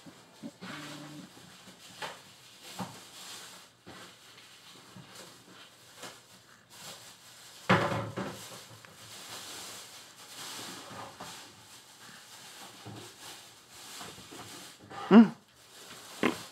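Young infant making scattered short vocal sounds, with a louder pitched, wavering vocal sound about fifteen seconds in. A single knock about eight seconds in.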